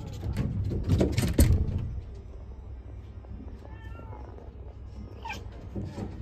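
Tabby-and-white kitten chattering at a crow through a window: a rapid run of clicky 'kya-kya-kya' calls in the first two seconds. This is the excited prey chatter that cats make at birds they can't reach.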